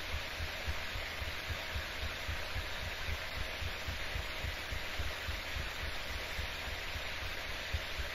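Fingertips tapping on the collarbone, heard as a rapid, even run of soft low thumps, several a second, over a steady background hiss.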